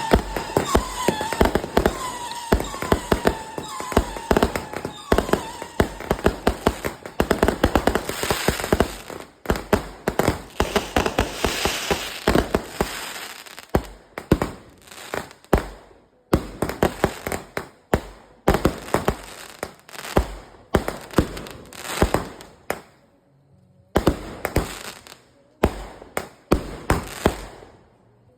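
Fireworks going off in rapid, irregular bangs and crackle, with wavering whistles in the first few seconds. The bangs thin out in the second half, with a short lull near the end.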